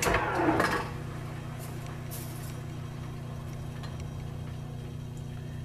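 1942 South Bend lathe running at about 800 RPM, its motor and belt drive giving a steady hum. The first second is louder, then the sound settles.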